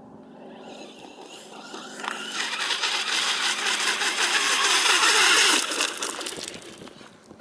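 FTX Carnage RC truck with a brushless motor and paddle tyres running across water: a hissing rush of spray and motor noise that grows louder from about two seconds in, peaks just past five seconds, then fades.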